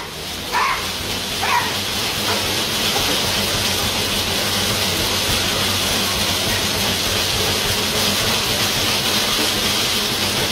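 Dog running on a carpet-belt dog treadmill: the belt and its frame give a steady rattling rumble under the dog's running. Two short dog squeals come about half a second and a second and a half in.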